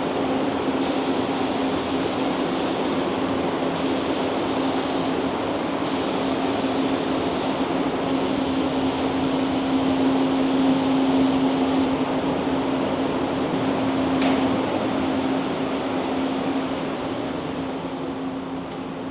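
Paint spray gun hissing in long on-and-off passes as it lays epoxy primer over bare metal, with a steady fan hum underneath. The spraying stops about twelve seconds in, leaving the fan hum, with a brief click a couple of seconds later; the hum fades near the end.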